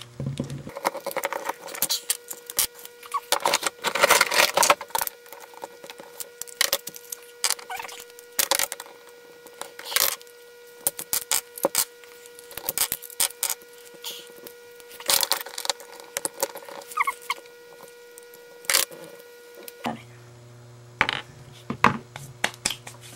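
Plastic Rubik's cube pieces clicking and clattering as the cube is pried apart and the pieces are set down on a tabletop: sharp, irregular clicks, thickest about three to five seconds in and again around fifteen seconds.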